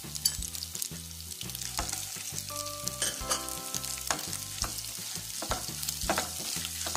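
Oil sizzling in a nonstick kadai as a tempering of chana dal, urad dal, mustard seeds and cumin fries, with scattered sharp crackles, while a silicone spatula stirs it.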